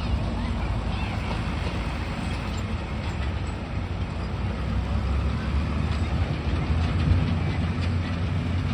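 A John Deere farm tractor's engine running as it drives by pulling a roller packer over the dirt track. Its low rumble swells about halfway through as it comes closest.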